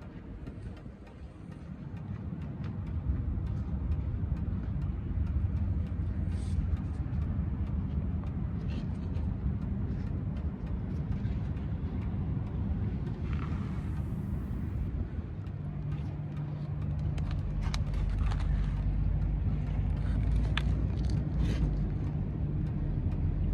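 Engine of a Mercedes W140 S320L running as the car is moved, a steady low hum that grows fuller and stronger about two-thirds of the way in, with a few faint clicks and knocks.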